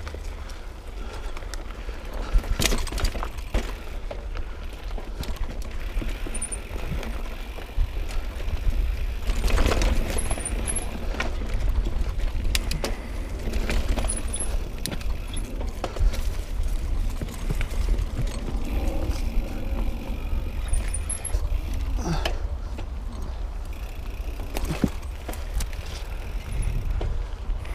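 Mountain bike ridden over a rough dirt trail, knocking and rattling irregularly as it rolls over roots and rocks, with a steady wind rumble on the microphone.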